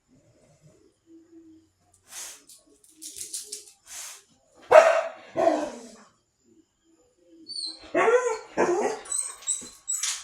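Pit bull barking: faint huffs at first, two loud barks about five seconds in, then a run of barks near the end.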